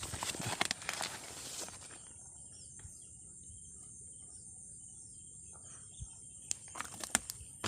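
Steady high-pitched chorus of insects such as crickets. Rustling, crackling handling noise sounds in the first couple of seconds, and a few sharp clicks come near the end.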